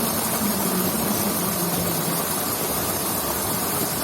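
Steady rushing of water flowing in an irrigation ditch, with a faint wavering hum underneath.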